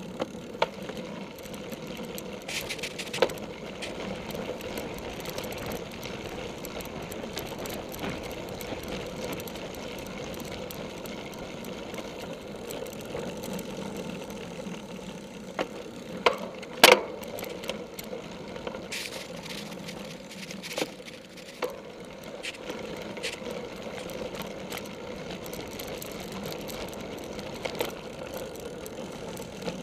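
Cyclocross bike ridden over a grass course, heard through a camera mounted on the bike: a steady whirr and rattle from the knobby tyres and drivetrain. Sharp knocks and clicks from bumps come every few seconds, with the loudest about halfway through.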